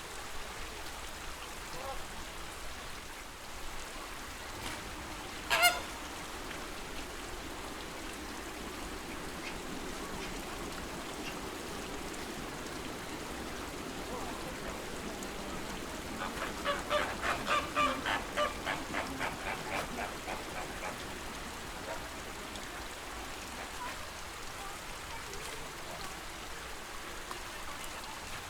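Flamingos honking over a steady sound of lake water: one sharp call about six seconds in, then a quick run of goose-like honks, about three a second, for some five seconds past the middle.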